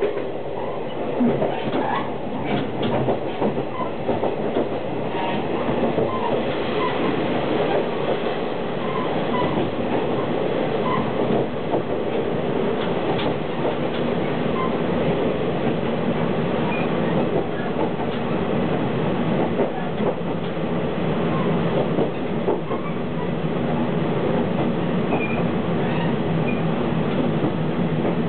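Running noise heard inside a KiHa 48 diesel railcar under way: a steady rumble of wheels on rail mixed with the diesel engine's drone, with faint wheel squeals now and then. It grows a little louder in the second half.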